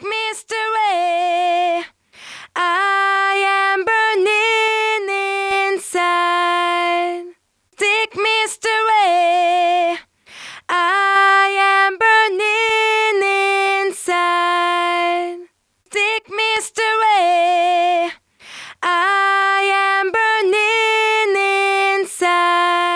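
Unaccompanied female voice singing held, vibrato-laden notes in short phrases a few seconds long with brief gaps between them. It is a vocal demo track run through the Sknote F76 FET compressor plugin, a model of the Urei 1176.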